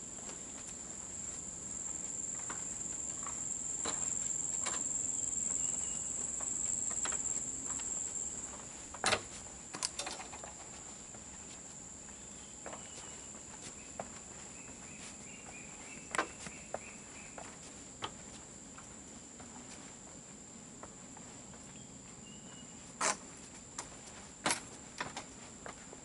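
A steady high-pitched insect drone of the rainforest, louder for the first several seconds and then easing off, with scattered footsteps knocking on a boardwalk and its steps.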